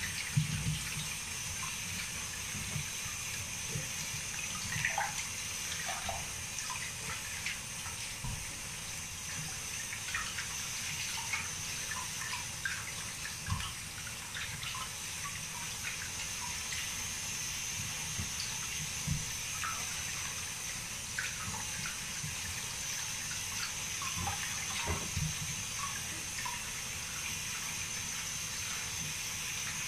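Tap water running steadily from a faucet into a plastic washbasin while a chihuahua is rinsed under it, with scattered small splashes.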